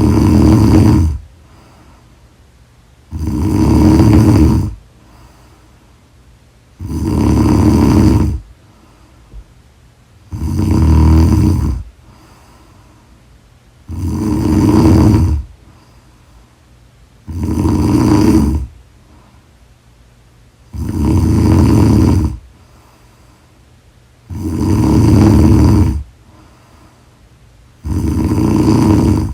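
A sleeping person snoring loudly in a slow, even rhythm: nine long rasping snores, each about a second and a half, one every three and a half seconds or so, with quiet breathing gaps between.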